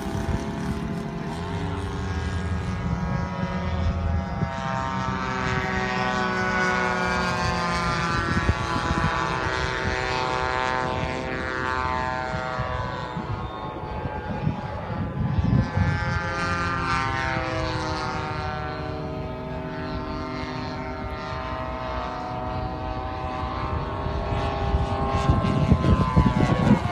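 Giant-scale radio-controlled PT-19 warbird model in flight, its motor and propeller buzzing steadily and sliding up and down in pitch as it passes and turns. It swells a few times and is loudest near the end on a low pass.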